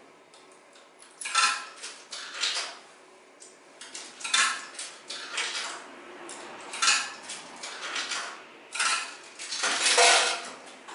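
Coins fed one at a time into the coin slot of a retro Kawatetsu soba vending machine, each dropping through the coin mechanism with a metallic clink, about seven in all, a second or two apart, the loudest near the end.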